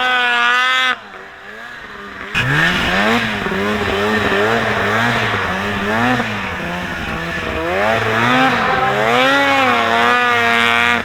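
Freshly rebuilt Ski-Doo 800 H.O. two-stroke twin snowmobile engine being ridden, its pitch rising and falling again and again as the throttle is worked. It drops away briefly about a second in, then comes back loud with a rising rev.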